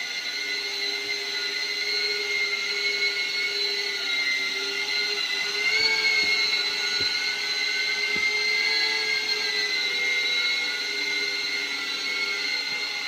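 Happymodel Cine8 cinewhoop drone with Gemfan D51 five-blade ducted propellers in flight, a steady high propeller-and-motor whine. The pitch rises briefly about six seconds in as the throttle comes up, then settles.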